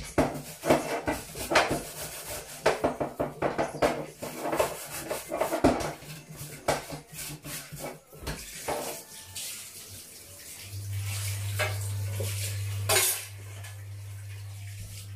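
Dishes and cutlery clattering at a kitchen counter, a quick run of clinks and knocks. About two thirds of the way in, a steady low hum sets in and carries on.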